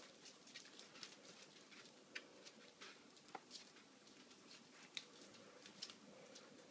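Border Collie puppies playing with toys: faint, irregular light clicks and taps.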